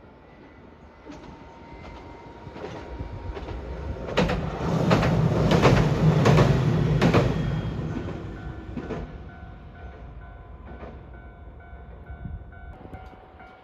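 A train passing by, its wheels clicking over rail joints in an even rhythm. It grows louder to a peak about halfway through, then fades as it moves away.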